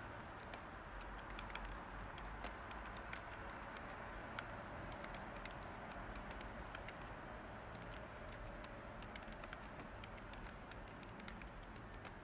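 Light typing on a computer keyboard: irregular, scattered key clicks over a steady hiss of white noise.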